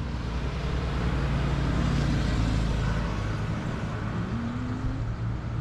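Road traffic: a motor vehicle engine running with tyre and road noise, swelling as it passes about two seconds in, and an engine note rising briefly near the end.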